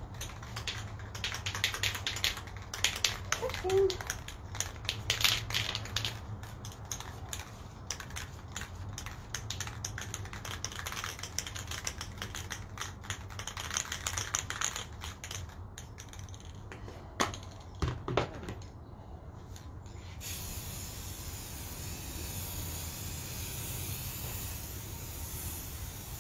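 Aerosol spray can being shaken, its mixing ball rattling in quick clicks, with a couple of harder knocks near two-thirds of the way in. From about 20 seconds in, a steady spray hiss as the can is sprayed.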